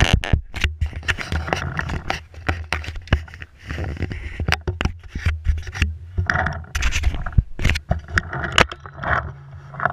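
Handling noise from an action camera mounted on a paintball marker carried by a running player: many irregular sharp knocks and scrapes over a steady low rumble.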